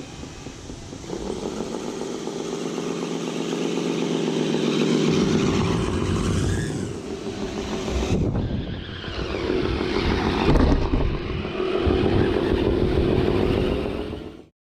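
Motor of a radio-controlled vehicle running, its pitch shifting up and down, then cutting off abruptly near the end.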